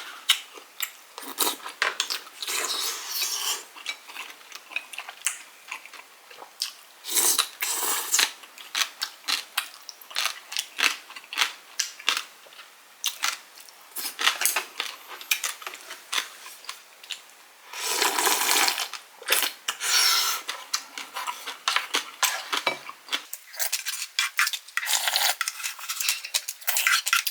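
Spoon and chopsticks clinking and scraping against a bowl of tteokguk while eating: many short clinks, with a few longer scraping stretches.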